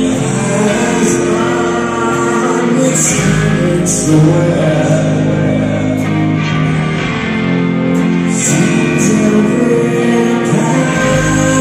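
Live rock band playing: electric guitars and drums with cymbal crashes under sung male vocals, recorded from within the crowd.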